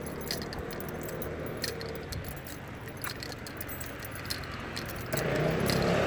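Steady low hum and hiss with scattered small clicks and light rattles, and a louder rushing noise that swells in about five seconds in.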